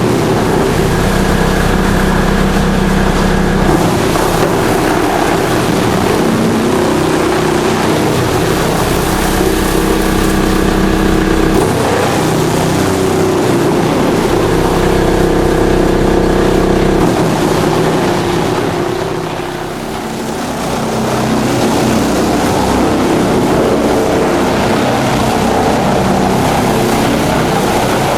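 Drum chipper running loud and continuous, with an engine note whose pitch shifts several times under changing load. The level dips briefly about 20 seconds in, then picks up again.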